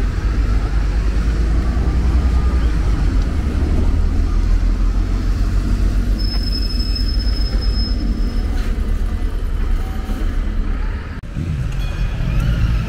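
City bus running close by, a steady low rumble, with a steady high beep lasting about two seconds in the middle. Near the end the sound changes to general street traffic.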